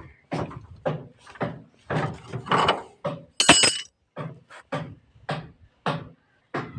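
A rapid, irregular series of knocks and thuds, with a brief high-pitched ringing sound about three and a half seconds in.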